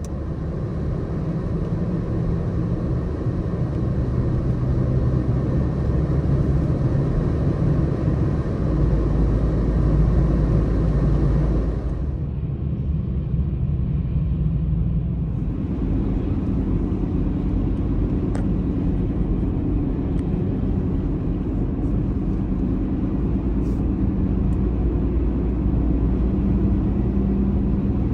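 Car driving, its steady engine hum and tyre noise carried through the whole stretch. About twelve seconds in the higher hiss drops away for a few seconds, then returns with a slightly different low hum.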